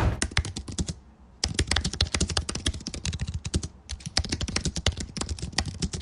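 Typing on a computer keyboard: quick runs of key clicks, pausing briefly about a second in and again near the four-second mark.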